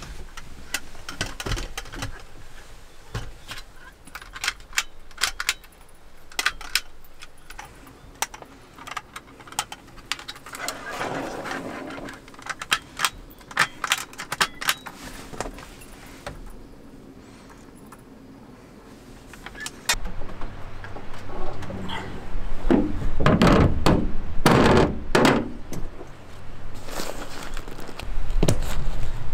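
Handling noises while a small ventilation fan and its vent hood are fitted: many light clicks and clatter, then heavier knocks and scraping from about 20 s in, loudest a few seconds later.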